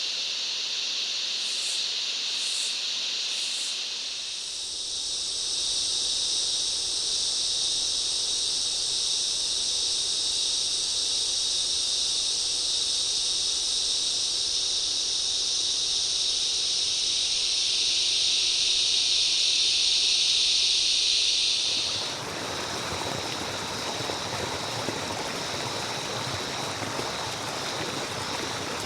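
Tropical rainforest cicada and insect chorus: a loud, steady, high-pitched buzz that thickens a few seconds in and swells before cutting off suddenly. It gives way to an even rushing noise with faint insects still audible.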